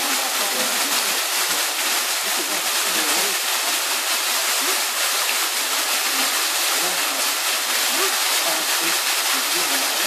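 A thin waterfall pouring through a hole in a sandstone rock overhang and splashing into a shallow pool, a steady hiss of falling water. Faint voices murmur underneath.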